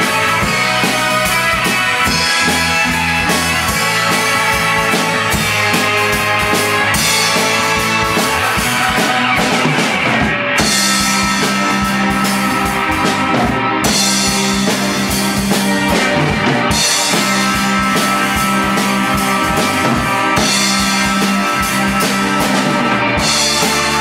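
A rock band playing live in a room: electric bass, electric guitar and a drum kit with cymbals, loud and continuous.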